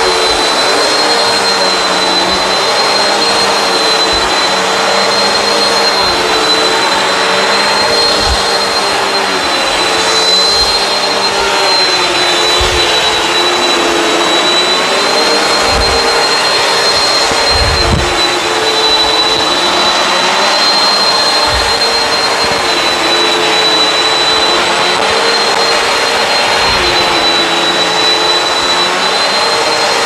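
Bissell CleanView Swivel Pet upright vacuum running steadily. Its motor whine dips slightly in pitch every few seconds, with a few brief low thumps along the way.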